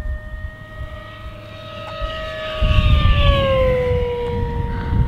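E-flite V1200 RC plane's brushless electric motor and propeller whining on a high-speed pass. The pitch drops about three seconds in as the plane goes by, with a low rumble underneath from about halfway.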